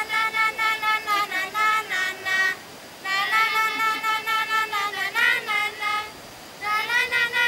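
Children singing in high voices, in three phrases broken off by short pauses about two and a half and six seconds in.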